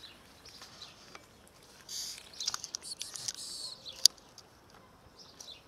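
Cats eating dry kibble from a clear plastic container: irregular crunching and small clicks against the plastic, busiest in the middle, with one sharp click about four seconds in. Small birds chirp briefly near the start and the end.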